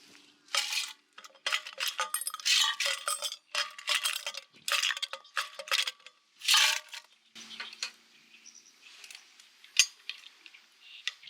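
Metal cooking utensils clinking and scraping against cookware in quick runs of strokes, busiest in the first seven seconds and sparser after.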